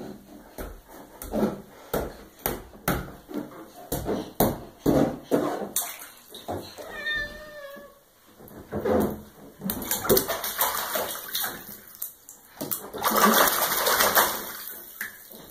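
Bathwater splashing as a baby slaps and kicks the water in a bath seat: a string of separate slaps at first, then a dense, continuous splashing over the last five seconds. About seven seconds in comes one short, wavering high-pitched call.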